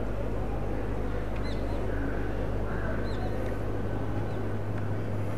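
Steady outdoor background noise over a constant low hum, with a few short, high bird chirps, about a second and a half in and again around three seconds in.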